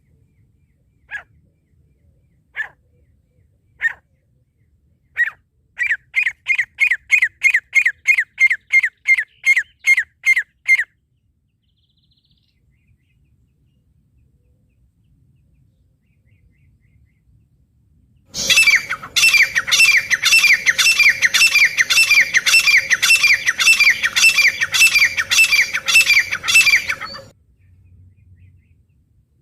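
Francolin (teetar) calls. First come four single notes about a second and a half apart, then a fast run of sharp calls at about four a second for some five seconds. After a pause of about seven seconds, a louder, harsher run of repeated calls lasts about nine seconds, with a steady low tone beneath it.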